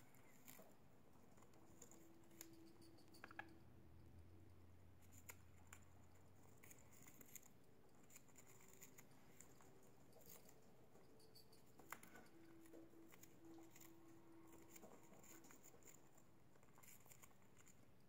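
Faint, scattered little clicks and scratches of budgerigars biting and shredding a strip of balsa wood.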